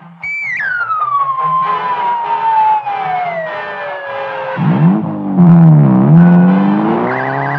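Cartoon sound effects: a long descending whistle that falls steadily in pitch for about four seconds, then a low wavering siren-like tone that dips and rises again, with a fast-warbling high tone joining near the end.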